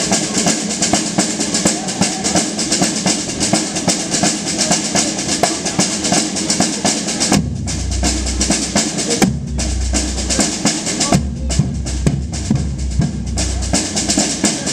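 Batucada samba percussion group playing a dense, fast rhythm of snare drums and high percussion. The deep bass drums are silent for the first half and come back in about halfway through.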